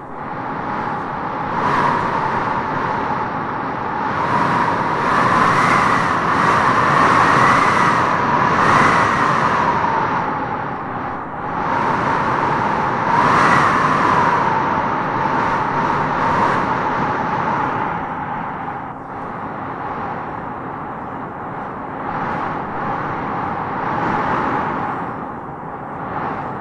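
Wind blowing in gusts: a continuous rushing with a whistling howl that rises and falls in pitch as each gust swells, strongest about five to nine seconds in and again around thirteen seconds in.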